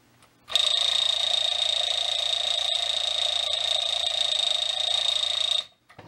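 Rhythm Totoro alarm clock's alarm bell ringing: a loud, steady, high ring with a fast rattling beat. It starts about half a second in and cuts off suddenly after about five seconds, as the little-Totoro stop switch is pressed.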